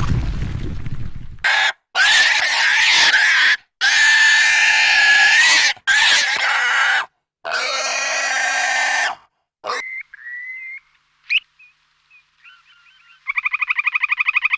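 A string of animal sound effects: a low rumble fades out, then four loud, harsh squeal-like cries of a second or two each, then short chirps and a quick rising glide. A fast trilling call starts near the end.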